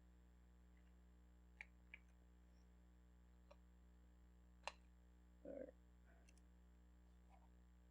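Near silence with a few faint, sparse clicks as a torque wrench is worked on a spark plug, the sharpest a little past halfway, followed shortly by a brief rustle.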